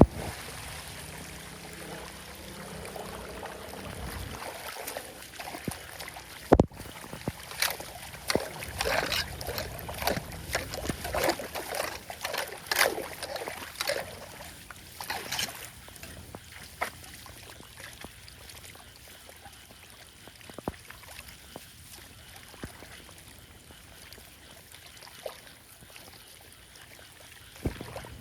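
Flood water splashing and trickling, with a sharp knock about six seconds in and a run of splashes through the middle, then quieter trickling.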